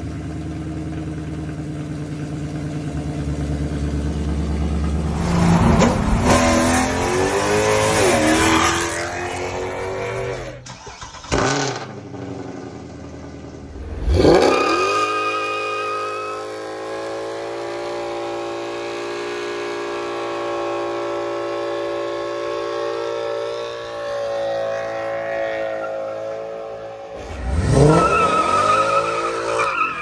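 Mercedes W204 C63 AMG's 6.2-litre M156 V8 through ARH headers and an X-pipe in place of the secondary cats, idling and then revved hard. About halfway through, a second C63 with MBH headers takes over: its engine is held at high revs with tires squealing in a burnout, then revved again near the end.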